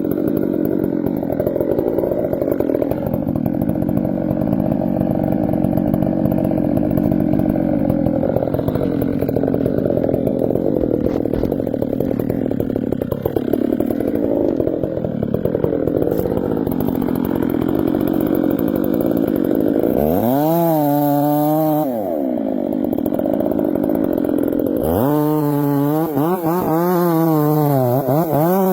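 Chainsaw running loudly and steadily. From about twenty seconds in, its pitch swings up and down over and over, as if it is being revved.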